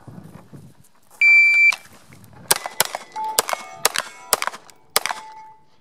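Electronic shot timer's start beep, one steady high tone of about half a second, followed after about a second by a CZ P09 9mm pistol firing a rapid string of about six shots over some two and a half seconds, steel targets ringing as they are hit, the last ring lingering near the end.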